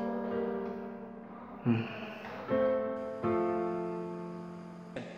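Background score of soft piano: a few notes and chords struck one after another, each ringing on and slowly fading.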